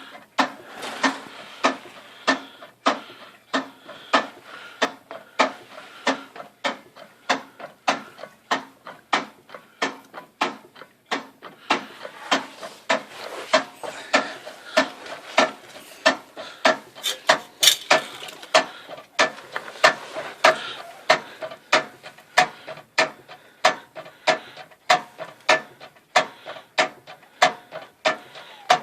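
Porsche 944 rear transaxle and driveline clunking over and over, about two sharp knocks a second, as it takes up its free play back and forth: excess lash whose cause is being sought.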